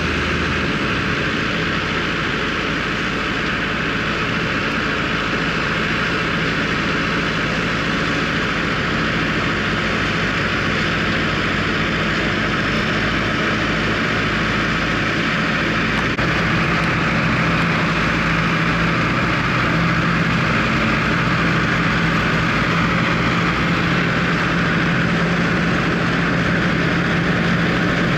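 Valtra tractor engine running steadily, pulling a working Grimme potato harvester, with a continuous mechanical rattle and hiss over the engine hum. The engine note grows a little stronger in the second half.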